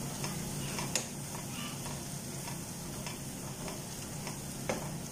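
Wooden spatula stirring a thick spice masala in a frying pan, the masala sizzling steadily, with a few sharp taps and scrapes of the spatula against the pan.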